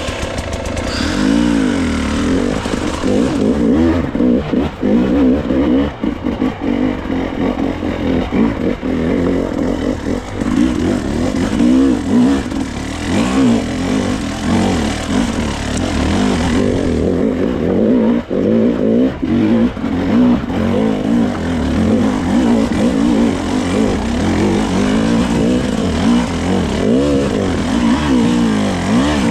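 GasGas dirt bike engine revving up and down without pause as it is worked over rough, rocky ground, with the clatter and knocks of the bike striking rocks.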